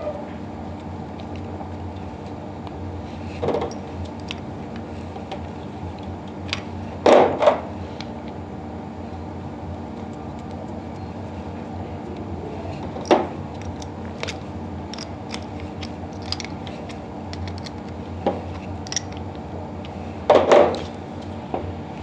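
Scattered clicks, taps and a few sharper knocks of a small pneumatic valve being handled while push-in fittings are screwed into its outlet ports, over a steady low hum.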